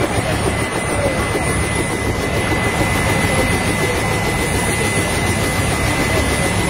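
Helicopter running on the ground: a loud, steady rush of rotor and engine noise with a steady high turbine whine.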